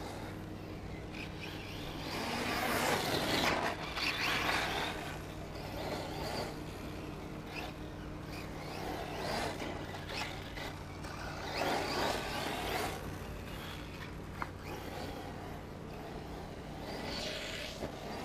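Radio-controlled off-road cars running on a dirt track: their motor and tyre noise swells up four times as they pass closer, over a steady low hum.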